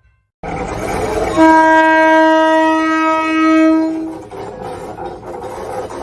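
A train's horn sounding one long blast of about three seconds, starting about a second and a half in, over the steady rumble of the train.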